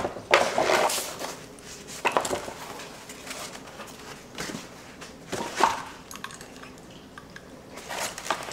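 Scattered light knocks and clinks of a stainless-steel spring kitchen faucet being handled, a few separate sounds spread over several seconds.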